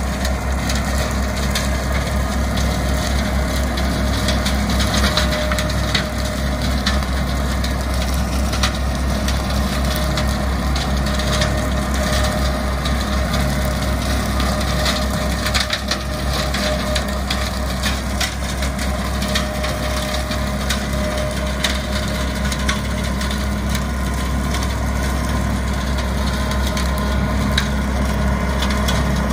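Compact tractor engine running steadily while its rear-mounted mower chews through dry brush, with frequent irregular cracks and snaps of stems breaking.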